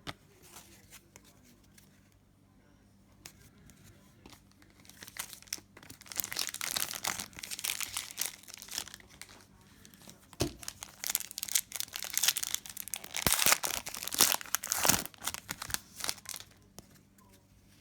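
The plastic foil wrapper of a trading-card pack being torn open and crinkled, a dense crackling that starts about five seconds in and is loudest a little before the end.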